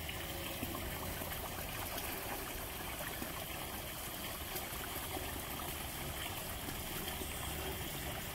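Steady trickling, running water.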